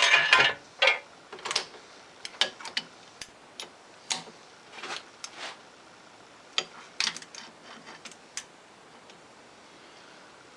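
Irregular light clicks and small metallic knocks, some in quick clusters, growing sparser near the end: hand tools and steel parts being handled while setting up the work.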